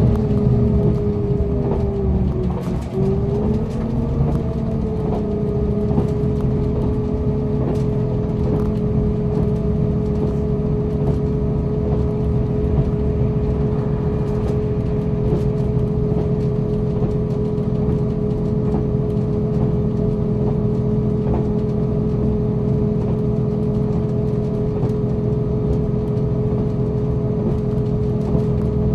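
Running noise inside a diesel limited express train, the Super Ozora: a steady engine drone with a high whine over the low rumble of the wheels on the rails. The whine dips briefly about two to three seconds in, then holds steady.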